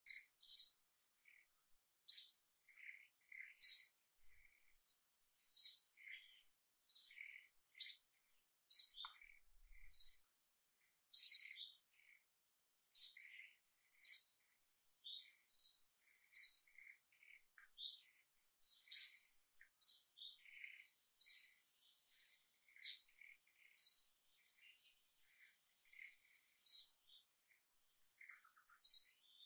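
A small bird calling over and over: short, high chirps about once every second or two, with fainter, lower chirps in between.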